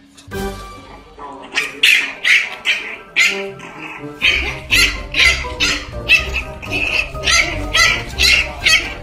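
Young puppy squealing and yelping over and over, about two cries a second, over background music with a low beat.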